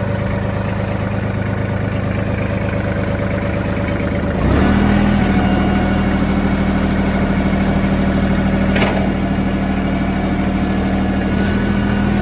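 2008 Mahindra 2615 HST tractor's diesel engine running at a steady low speed. About a third of the way in, the hand throttle is opened and the engine steps up to a higher, steady speed, which it holds until it is throttled back down at the very end. There is a short click about two-thirds of the way through.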